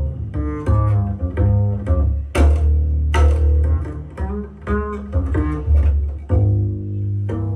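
Music played back through a homemade loudspeaker under test, with a heavy bass line and sharp plucked notes.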